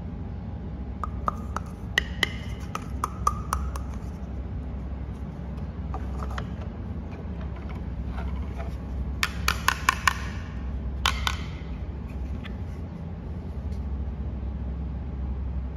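Plastic toy food pieces clicking and tapping as they are handled and set down on a tabletop: scattered light clicks, then a quick cluster of taps about nine to ten seconds in, over a steady low rumble.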